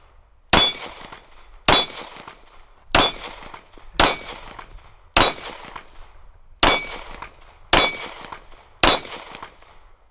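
Eight pistol shots, fired roughly one a second, with a slightly longer pause in the middle. Each shot comes with a high metallic ring from the steel plate targets.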